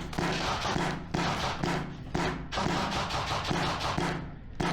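Airsoft electric rifles firing repeated short bursts of full-auto, each rattle lasting under half a second, back to back.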